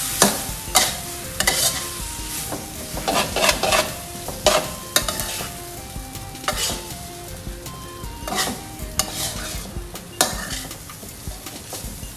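A spatula scraping and tossing stir-fried glass noodles with shrimp in a hot pan, with irregular strokes a second or so apart over a steady sizzle, as the last celery is mixed in.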